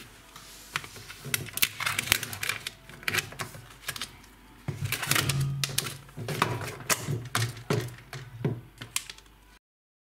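Close handling noise: a rapid, irregular run of clicks, taps and rustles as the plastic hoses and fittings at the back of a washing machine are handled near the microphone. It cuts off abruptly near the end.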